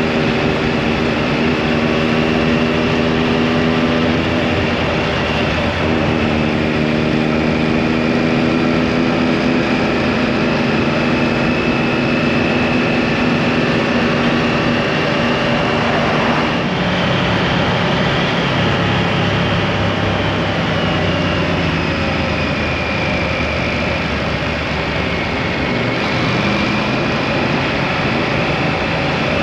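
Triumph motorcycle running at road speed: a steady engine note under heavy wind and road noise. The engine note changes about halfway through as the revs shift.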